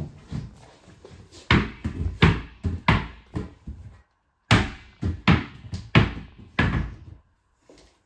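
Rubber fitness ball bounced repeatedly on a hard floor: a quick run of thumps, with a short break about halfway through.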